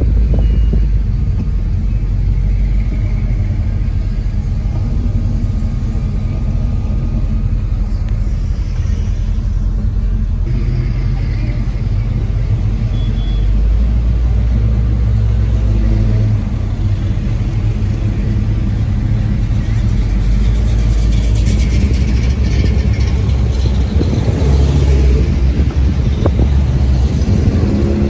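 Engines of classic cars cruising slowly past, a loud, steady low rumble that shifts as different cars go by.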